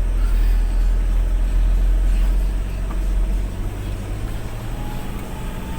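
Vehicle engine running under load as it climbs a steep dirt hill, a loud low rumble that eases somewhat about three and a half seconds in.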